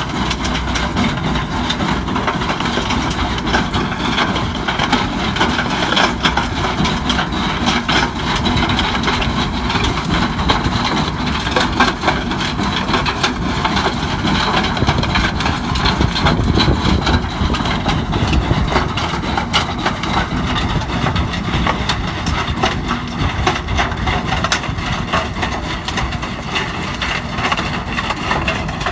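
Tractor engine running steadily while working a Tutkun Tiger rock picker, with frequent sharp clattering knocks from the machine throughout.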